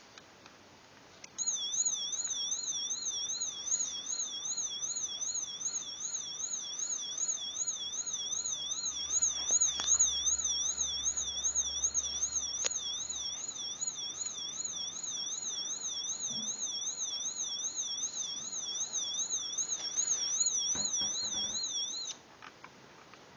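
Electronic siren from a Lego light-and-sound brick: a high, fast warbling wail that starts about a second in and cuts off suddenly near the end. A couple of faint clicks are heard partway through.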